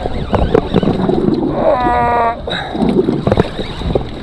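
Wind buffeting the microphone and sea water slapping against a small boat's hull, with scattered handling knocks. About halfway through, a short steady tone lasts under a second.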